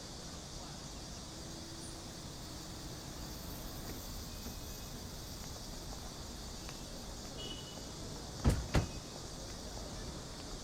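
Steady low background hiss, then about eight and a half seconds in two doors shut one right after the other, two dull thuds close together.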